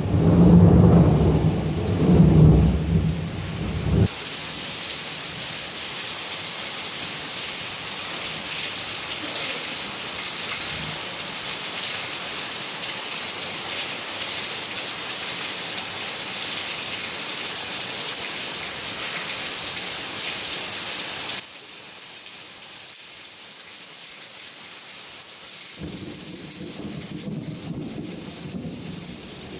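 Thunder rumbling over heavy rain, cutting off sharply about four seconds in to leave the steady hiss of a downpour. Near the middle the rain drops abruptly to a softer patter, and thunder rumbles again near the end.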